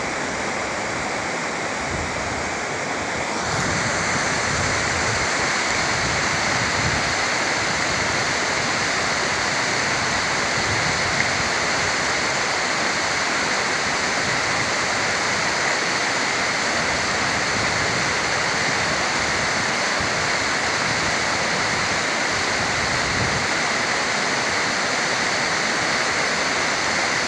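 Rushing water of a mountain stream, a steady noise that gets louder and brighter about three and a half seconds in.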